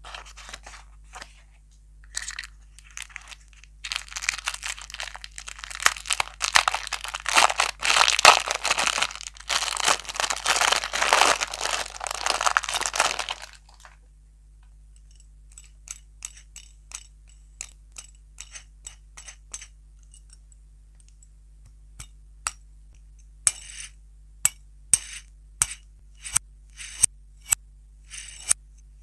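Thin plastic wrapper crinkling and tearing as it is opened for about eleven seconds. Then come scattered small clicks, and later a run of sharp plastic clicks about two a second as a small plastic spinner toy is handled and snapped together.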